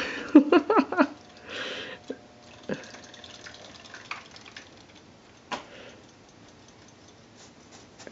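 Small splashes, drips and taps in a kitchen sink of water where battery-powered robot fish toys swim and a cat noses and paws at them. A short, wavering voice-like sound comes in the first second.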